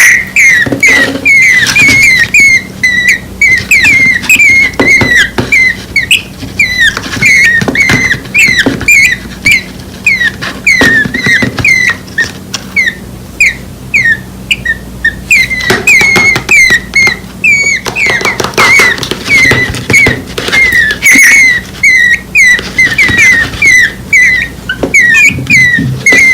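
Two nestling birds, less than a week old, begging with rapid, repeated high cheeps, several a second, calling for the parent to come and feed them; the calling thins out briefly midway and then picks up again.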